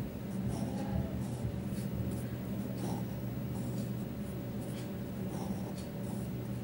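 Ballpoint pen scratching on paper in short strokes as square-root signs are drawn, over a steady low hum.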